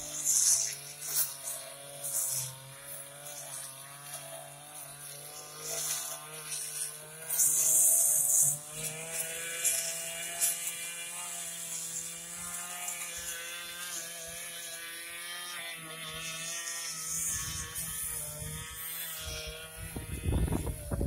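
Tamamoto backpack two-stroke brush cutter running under load as it mows through tall grass, its engine note wavering up and down. Bursts of high hissing come through, the loudest about eight seconds in, with a low rumbling near the end.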